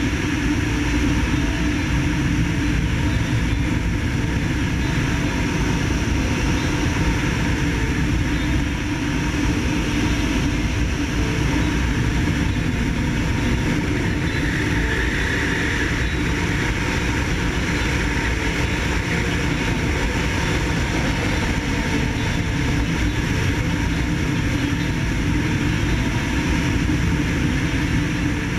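Kawasaki ZX-6R's inline-four engine running at steady cruising revs, mixed with heavy wind and road noise rushing over the back-mounted camera. The sound holds steady, with no gear changes or revving.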